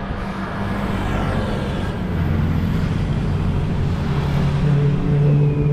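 A motor vehicle's engine running with a steady hum that grows louder over the last second or two as it draws near, over a steady rush of road noise.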